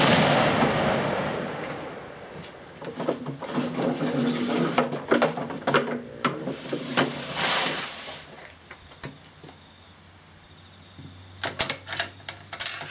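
The rolling echo of a 7mm-375 Ruger rifle shot, fired without a muzzle brake, fading over about two seconds, followed by a series of sharp metallic clicks and clatter from the rifle being handled, with a few more clicks near the end.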